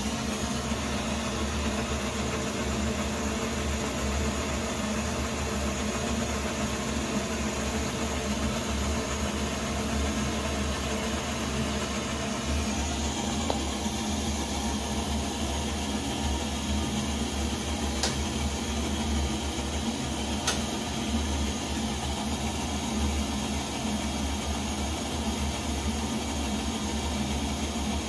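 Coleman 533 pressurised gasoline stove burning at its burner: a steady, even rush of flame with a low hum under it. Two faint ticks come in the second half.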